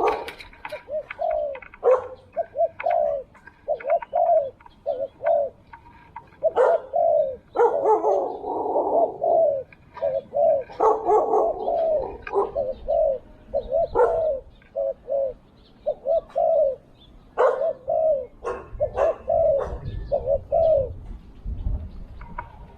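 Spotted doves cooing: a steady run of short, repeated coo phrases. About 8 and 11 seconds in, two birds' calls overlap, as when a caged decoy and a wild dove answer each other. Scattered light clicks are heard between phrases.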